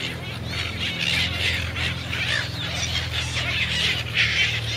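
A flock of silver gulls calling over one another in a dense, unbroken chatter of short, high calls, over a low steady hum.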